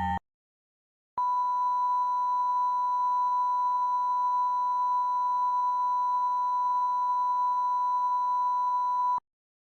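Emergency alert tone: a single steady tone near 1 kHz, sounding for about eight seconds from about a second in and cutting off sharply, the NOAA Weather Radio–style 1050 Hz warning alarm that comes before a spoken tornado warning. Right at the start the two-tone EAS attention signal cuts off.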